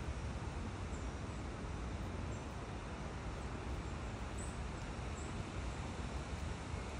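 Steady outdoor background noise with a low wind rumble on the microphone, and a few faint, very short high chirps scattered through it.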